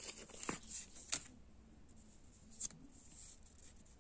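UNO cards being handled: a light rustle in the first second with a few sharp card clicks, and one more click about two and a half seconds in.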